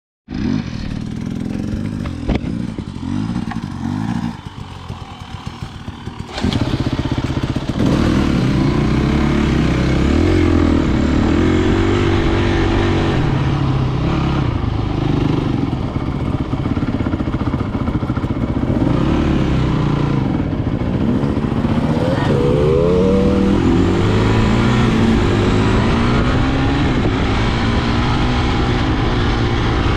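A motor engine running under way, its pitch rising and falling as the speed changes. It becomes much louder about six seconds in.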